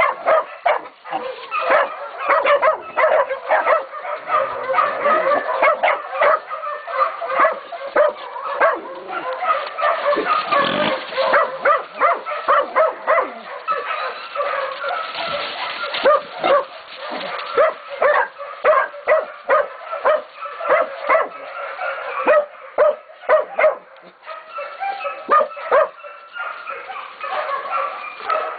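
Catahoula and Black Mouth Cur puppies baying a pig: several young dogs barking hard and fast with overlapping barks and yips, holding the pig at bay.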